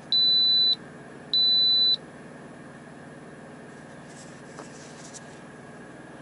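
Instant Pot Duo electric pressure cooker beeping twice, two long steady high-pitched beeps about half a second apart, as its display switches to "On": the signal that the cooking program has begun.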